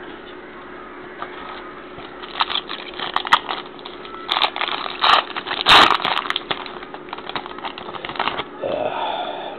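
Foil trading-card pack wrapper crinkling and tearing, a run of sharp crackles and clicks that is loudest about six seconds in.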